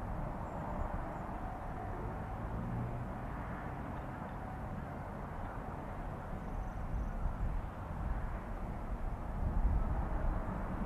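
Steady, distant vehicle rumble with wind buffeting the microphone; no distinct events.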